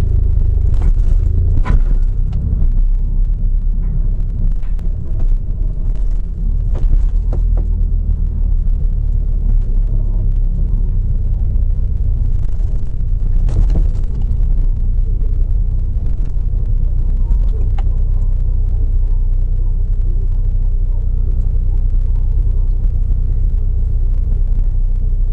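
Low, steady rumble of a car driving slowly, heard inside the cabin of a manual-gearbox Hyundai Avante AD (Elantra): engine and tyre noise, with a few short knocks in the first half.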